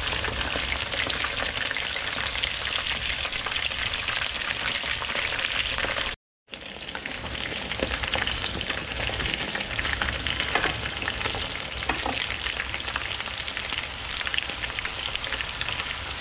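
Battered shrimp deep-frying in a pan of hot oil: a dense, steady sizzle and crackle from their second frying, which crisps the batter. A brief dropout to silence about six seconds in.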